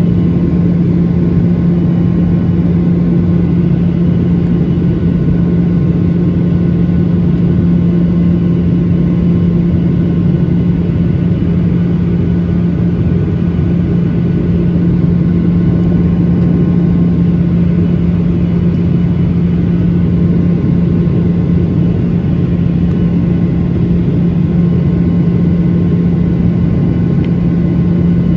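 Steady cabin drone of a Boeing 737-900ER airliner: engine and airflow noise under a strong, constant low hum, unchanging throughout.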